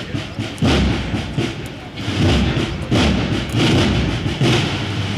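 Spanish cornet-and-drum band (banda de cornetas y tambores) playing a processional march. Heavy drum beats fall a little more than once a second under the full band.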